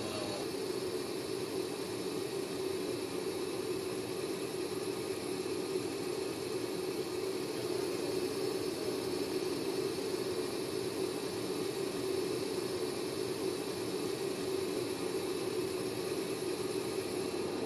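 Steady mechanical hum and hiss of industrial 3D-printing machinery running, even and unbroken, with no distinct knocks or changes.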